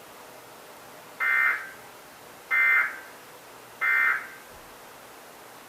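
Emergency Alert System end-of-message (EOM) signal: three short two-tone digital data bursts about a second and a half apart, the code that closes out the test message.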